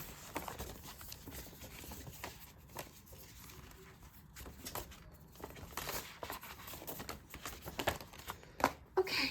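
Paper album contents being handled: intermittent rustling and crinkling of a paper poster and photobook, with scattered light taps, a little louder near the end.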